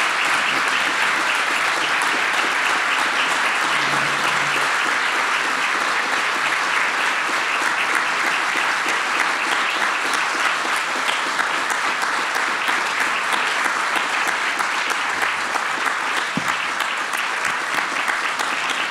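An audience applauding in one long, steady round of clapping.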